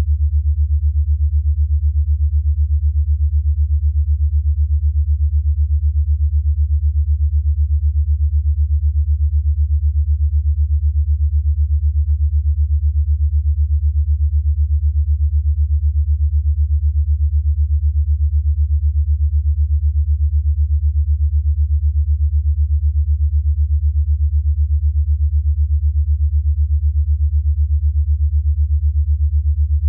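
A steady, low electronic sine tone whose volume pulses rapidly at an even rate: an 8 Hz alpha-wave pulsed tone meant for brainwave entrainment.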